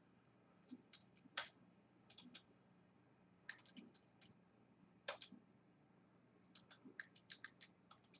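Faint computer keyboard typing: scattered key clicks in short clusters of a few strokes, with pauses between them.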